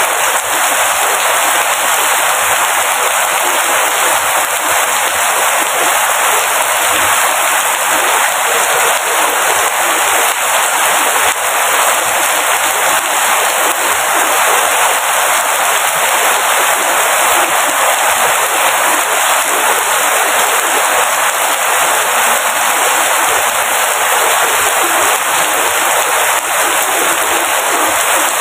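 Rain falling steadily, a dense, even hiss of drops that never lets up.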